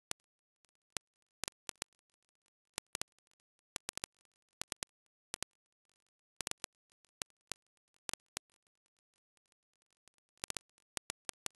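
Near silence broken by irregular sharp clicks, some coming in quick clusters; no engine or driving noise is heard.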